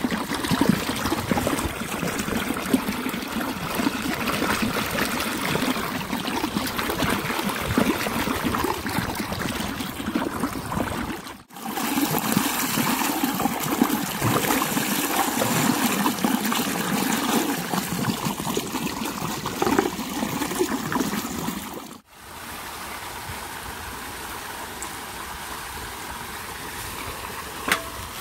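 Water running from a pipe and splashing onto concrete as spring onions and green chillies are rinsed in the flow. The sound cuts off suddenly twice. After the second break a quieter steady background remains, with a single click near the end.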